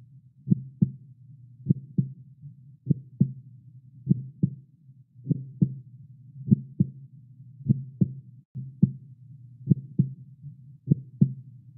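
Heartbeat sound effect: slow, evenly paired lub-dub thumps about every 1.2 seconds over a faint low hum.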